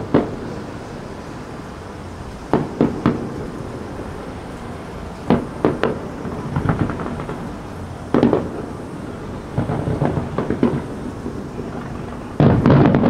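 Aerial firework shells bursting in sharp bangs, in clusters of two or three every few seconds, with some smaller crackling, then a dense, louder volley of bursts near the end.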